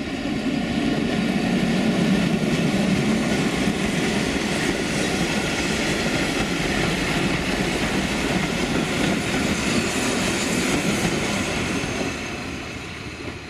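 A heritage passenger train passing close by, hauled by a 1952 Frichs six-cylinder diesel locomotive: the engine and the coaches' wheels running over the rails. The sound holds loud and steady, then fades about a second before the end.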